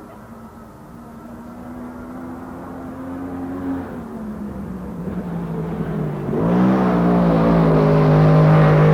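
Ford DOHC quad-cam V8 of a USAC championship dirt car running at speed. It grows steadily louder as the car approaches, jumps suddenly much louder about six seconds in, and then holds a steady, lower engine note.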